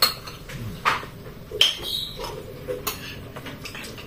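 Metal spoons and forks clinking and scraping against ceramic dinner plates during a meal: a few sharp clinks, one of which rings on briefly about a second and a half in.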